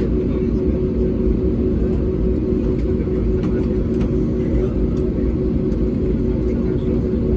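Airbus A320neo airliner cabin noise while taxiing after landing: a steady low rumble with a constant two-note hum underneath.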